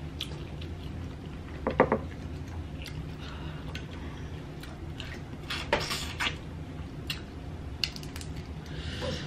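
Cooked tiger shrimp being lifted out of a glass dish of seafood boil and peeled by hand: scattered clicks, taps and shell crackles. The loudest come about two seconds in and in a cluster around six seconds.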